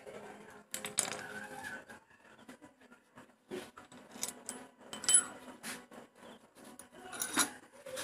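Hand tools and metal parts clinking and rattling against a Yamaha Mio Sporty's cylinder head during a tune-up. There are scattered sharp metallic clicks; the loudest come about one second in, about five seconds in, and again near the end.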